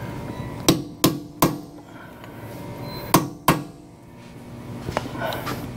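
Hammer striking a blunt chisel to stake the collar of a freshly torqued front axle nut into the axle shaft. Three sharp metal-on-metal strikes come about a third of a second apart, then two more about two seconds later and a lighter tap near the end, each with a brief ring.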